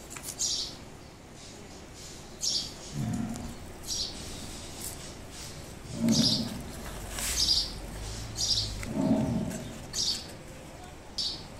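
Birds chirping now and then, a short call every second or two, with a few lower calls among them, over the light clatter of plastic interlocking building blocks being handled and pressed together.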